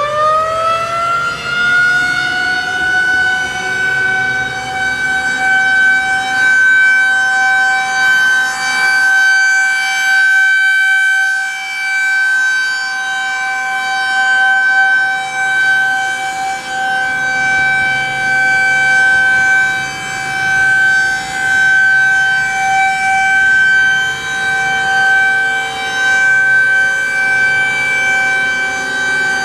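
Federal Signal 2001-SRN rotating outdoor warning siren sounding a steady single-tone alert. Having just wound up, it settles at full pitch in the first couple of seconds, then holds one steady tone that swells and fades every two to three seconds as the rotating horn sweeps past. A fainter second siren, the Federal Signal Thunderbolt, sounds underneath.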